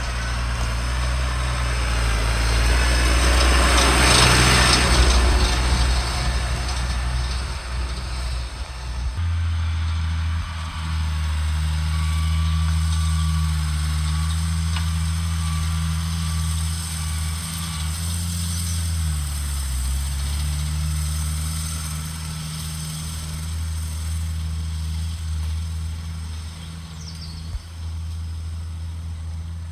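Case MXU 130 tractor's diesel engine running, loudest as it passes close by about four seconds in. After a cut, the same tractor runs steadily at work in the field, its engine note dipping briefly near the middle.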